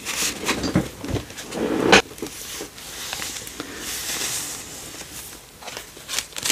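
Paper and card being handled in a thick handmade junk journal: rustling as a card is slipped back into a pocket and pages are turned and smoothed flat. There is one sharp tap about two seconds in.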